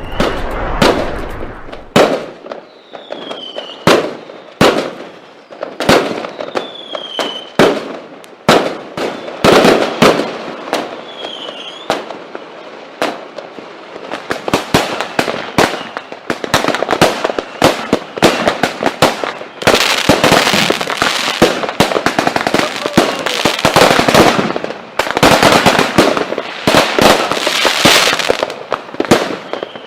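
Fireworks going off: a run of separate sharp bangs with a few short falling whistles among them. About two-thirds of the way in this gives way to dense, continuous crackling.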